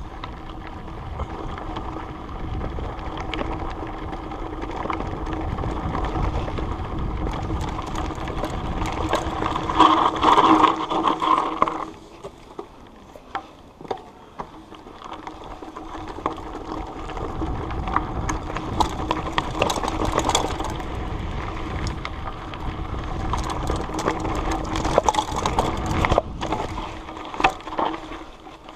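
A motor vehicle's engine running over a rough trail, with knocks and rattles throughout. It is loudest about ten seconds in, drops off sharply around twelve seconds, then builds back up.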